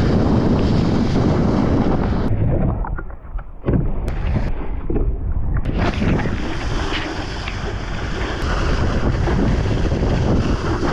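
Wind buffeting an action camera's microphone, over the rushing hiss and splash of a wakeboard carving across the water. The sound turns dull and dips briefly about three seconds in, and the bright spray hiss comes back about six seconds in.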